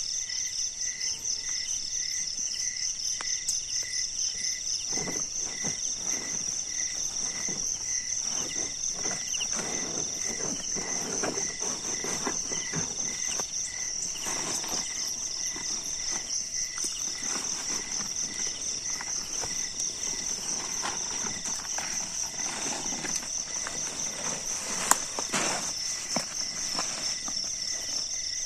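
A steady high cricket trill with a second insect chirping about twice a second. Over it, the nylon tent and plastic groundsheet rustle and crackle and footsteps crunch on gravel as the tent is pitched. A sharp click comes near the end.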